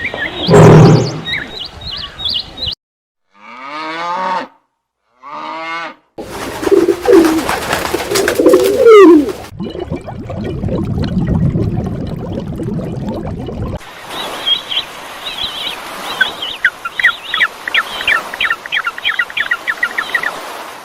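A string of separate animal-call recordings, one after another: loud low calls first, then two short pitched calls, a stretch of mixed calls with sliding pitch, and, from about two-thirds of the way in, a long run of rapid high chirps like bird calls.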